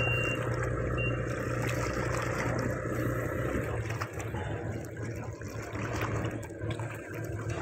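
Sea water lapping and splashing, with a steady low motor hum underneath and a few short high beeps in the first second.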